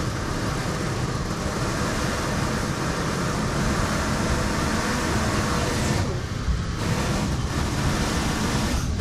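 Metra Rock Island commuter train running, heard from inside the passenger car: a steady rumble and hiss that dips briefly about six seconds in.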